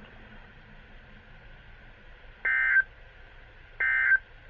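NOAA Weather Radio SAME digital data bursts: two short, shrill warbling bursts about a second and a half apart, over faint radio hiss. They are the end-of-message code that closes the weekly test broadcast.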